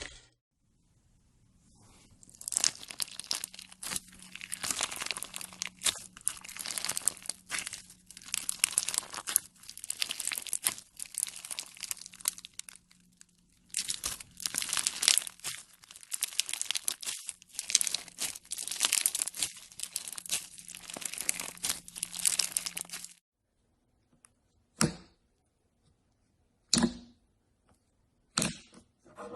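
Slime being squeezed and stretched by hand, giving off a dense crackling and crinkling in several bouts. Near the end come three short, separate squishes.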